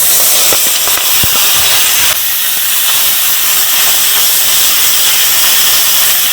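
Small river fish frying in hot mustard oil in a kadai: a loud, steady sizzle with a few pops of spattering oil in the first second or so.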